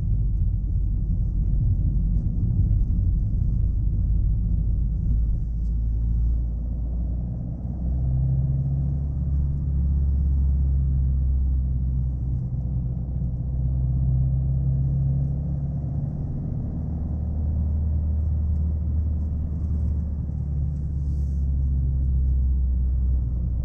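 Chevrolet Aveo hatchback on the move: low engine and road rumble, which settles into a steady low drone from about eight seconds in.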